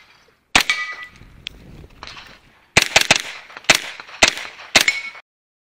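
Pistol-caliber carbine firing about seven shots: one, then a quick burst of three, then three more spaced about half a second apart. Several shots are followed by the ring of hit steel targets. The sound cuts off suddenly after the last shot.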